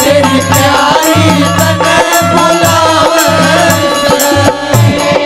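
Live Indian folk band music with a steady rhythm of low drum beats and regular jingling percussion under a melody line.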